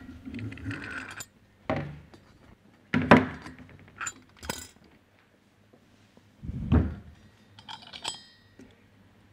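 Separate metal clinks and knocks as a centrifugal pump's impeller is levered off its shaft and the pump parts are handled on a workbench. The sharpest knock comes about three seconds in, a duller thud about two-thirds through, and a brief metallic ring near the end.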